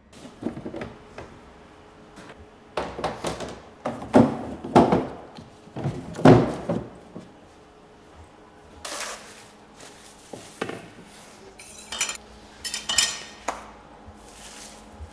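Kitchen equipment being handled: a run of knocks and clatters, loudest in the middle, then a few higher clinks near the end.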